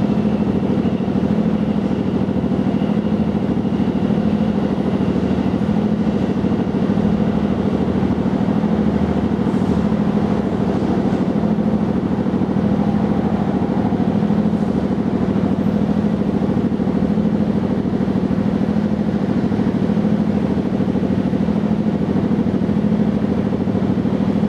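Domestic cat purring steadily, a low continuous rumble that swells and fades in a slow even rhythm with its breathing.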